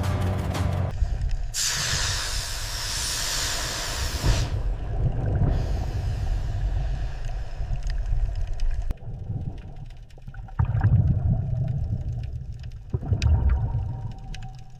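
Air hissing for about three seconds, then low rumbling and sloshing of water with a few faint clicks, swelling twice near the end.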